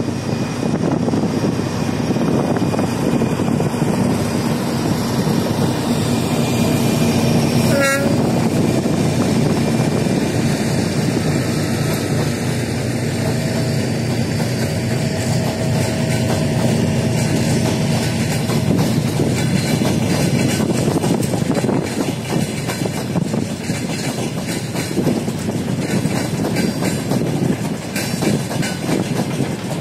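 A 3TE10M three-section diesel freight locomotive with two-stroke diesel engines passing with a heavy engine drone, followed by a long train of freight wagons rolling by, their wheels clattering over the rail joints. A brief high squeak is heard about eight seconds in.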